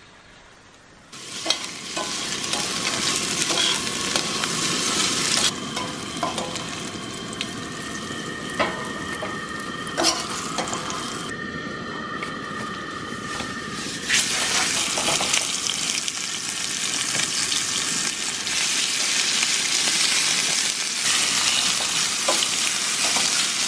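Thin seasoned steaks sizzling in hot oil in a stainless steel frying pan, with metal tongs clicking against the pan as the pieces are laid in. The sizzle starts suddenly about a second in.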